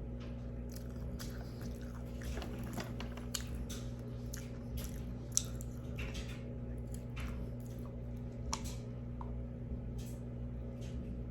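Close-miked eating sounds of someone biting and chewing Carolina Reaper hot chicken: scattered wet smacks and small crunches, with a faint steady hum underneath.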